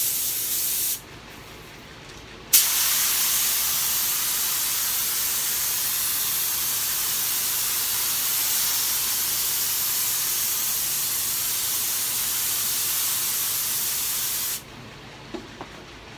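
Gravity-feed spray gun hissing as it sprays activator onto hydrographic film floating on the water, the step that liquefies the film's ink for dipping. A short burst of about a second, then after a brief pause a long steady spray of about twelve seconds that cuts off near the end.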